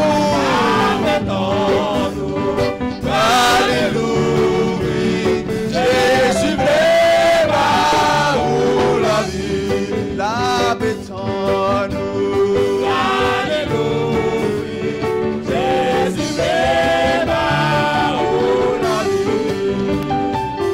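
Live gospel worship music: singing over a keyboard accompaniment with steady held chords.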